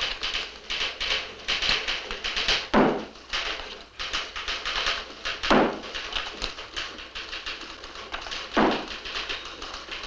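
Rapid typewriter clatter with a hand-held rubber stamp thumping down on a desk three times, about three seconds apart.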